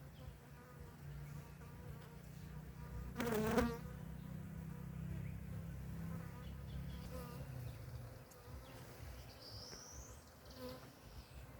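Honeybees buzzing steadily around their hives, a low continuous hum, with one briefly louder buzz about three seconds in.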